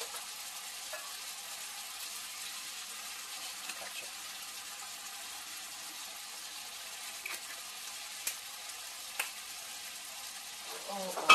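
Chicken feet and onions sizzling steadily in oil in a stainless steel pan, with a few light clicks.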